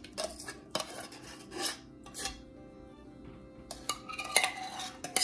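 A metal spoon scraping and clinking against a tin can as thick condensed cream of chicken soup is spooned out into a plastic bowl. There are several short scrapes and clinks, a quiet pause of about a second midway, then more clinks near the end.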